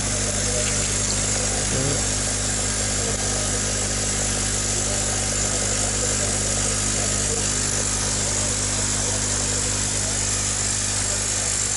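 Electric air pump aerating a shallow basin of water: a steady mains hum with a low buzz, over a continuous hiss of bubbling.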